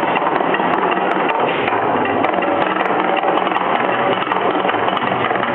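Mirage volcano show eruption effects: loud, dense, continuous crackling rumble.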